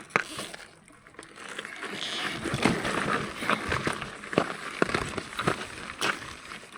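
Footsteps scrabbling and crunching on loose stones of a steep rocky trail, with irregular sharp knocks and scuffs of rock underfoot. The sound grows busier from about two seconds in.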